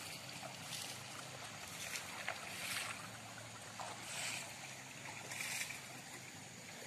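Faint, steady rush of brown floodwater flowing across a road, with a few soft swells of splashing.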